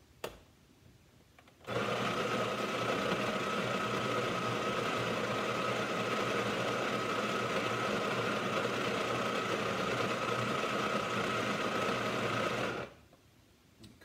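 Electric burr coffee grinder grinding beans into a glass jar: a click, then the motor starts about two seconds in, runs steadily with a steady whine for about eleven seconds, and stops.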